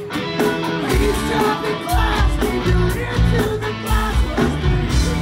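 Live rock band playing: electric guitar and drum kit, with a singer on the microphone.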